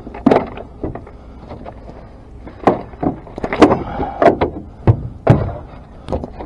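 Irregular sharp knocks and thumps on a boat, about seven hard hits spread over six seconds.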